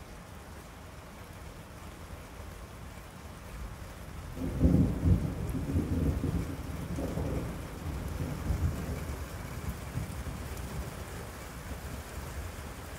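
Steady rain falling, then thunder breaks about four and a half seconds in and rolls on for several seconds in deep surges before easing off.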